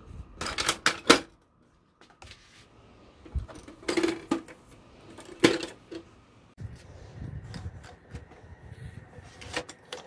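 Hard plastic clacks from a Canon LBP113W laser printer being handled: a cluster of knocks as the top cover is shut about a second in, single clacks near four and five and a half seconds, and lighter clicks near the end as paper goes into the front tray.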